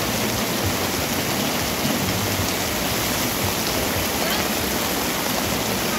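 Heavy, steady rain falling on wet pavement and market awnings, with runoff streaming off the roof edges.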